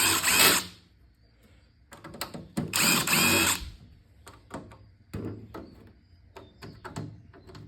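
Power drill running in two short bursts of about a second each, with scattered clicks and taps from handling parts in between and afterwards.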